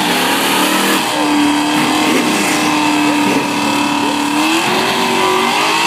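Drag car's engine held at high revs during a burnout, with tyres spinning; the engine note stays steady for a few seconds, then climbs a little near the end.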